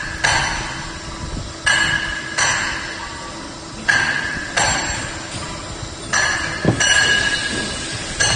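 Sharp metallic strikes, seven of them at uneven intervals, each ringing on with a clear high tone and fading over about a second.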